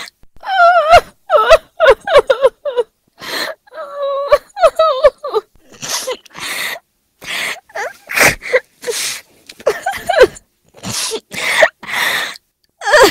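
A woman sobbing hard. High, wavering wails break up and alternate with rapid, sharp, breathy gasps between them.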